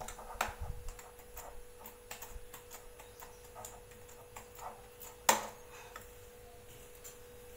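Light irregular ticks and taps of metal kitchenware (an aluminium pot held in pot-holder tongs, a steel plate and spoon) being handled, with one sharper clink about five seconds in, over a faint steady hum.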